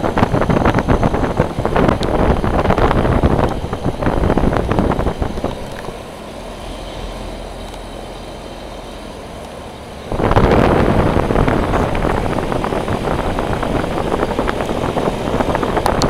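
American Standard outdoor air-conditioner condenser unit running, its three-blade top fan blowing air, with the discharge rushing over the microphone. The rush drops to a quieter steady hum for a few seconds in the middle, then comes back loud.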